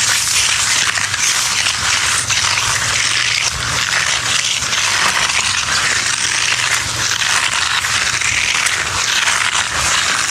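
Gas-powered leaf blower running steadily: a loud hiss of rushing air over a low engine hum.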